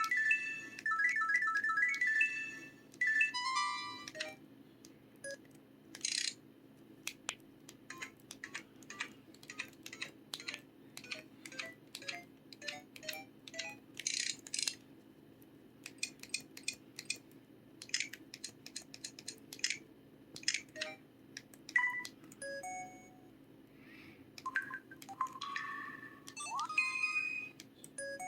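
A series of LG-KC3500 mobile phone sound effects played one after another: short melodic jingles in the first few seconds, then many brief clicks and short key beeps, and a few more short tones with a quick rising sweep near the end.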